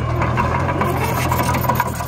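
Mini bulldozer at work: a steady engine drone under a dense, irregular scraping and clattering.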